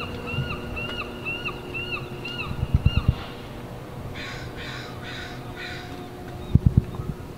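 Bird calls: a run of short repeated chirps, then four harsh caws about half a second apart. Two brief clusters of dull low thumps, the loudest sounds, come just before the caws and near the end.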